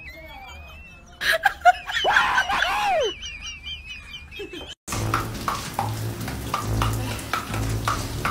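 Small birds singing repeated warbling phrases by a pond, broken about a second in by a loud clatter and a brief voice. About five seconds in, the sound cuts to the steady hiss of a running shower spraying water.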